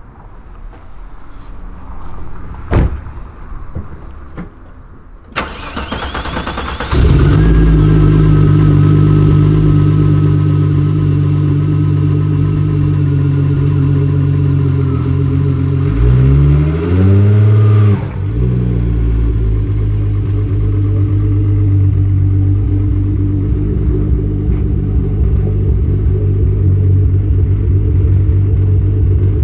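Turbocharged VR6 engine of a VW Golf Mk3 cranked by the starter about five seconds in, catching after a second or so and settling into a steady idle. Near the middle it is blipped once, the pitch rising and falling, then idles on. A couple of sharp clicks come before the start.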